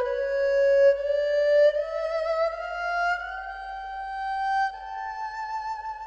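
A sampled solo bowed string phrase from the Sonuscore Ethnic String Phrases Kontakt library. It plays a single slow melodic line of held notes with vibrato, stepping upward in pitch every second or so.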